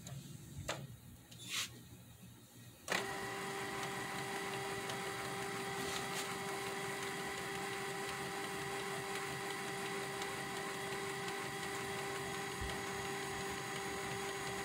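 Canon PIXMA G1220 inkjet printer starting up its mechanism about three seconds in and then running with a steady whir and hum, as it prepares to print, after a few faint clicks.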